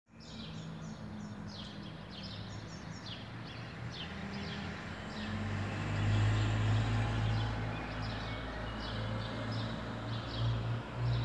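Several birds chirping in quick, short falling notes over a steady low rumble of city traffic, which grows louder about halfway through.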